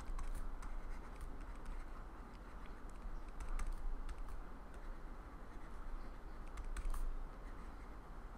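Pen or stylus on a writing pad, tapping and scratching as words are handwritten: a string of small irregular clicks over a steady low hum.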